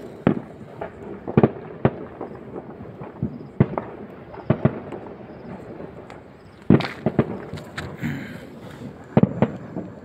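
Irregular sharp pops and cracks, several a second at times, with a quick cluster about seven seconds in and another near nine seconds.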